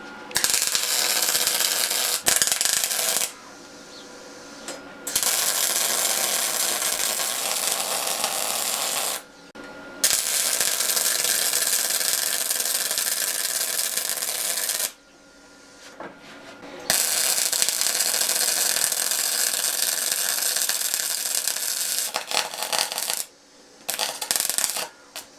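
Gas-shielded MIG welder arc crackling and sizzling in four runs of several seconds with short pauses between, then a few short bursts near the end: steel being tacked and welded.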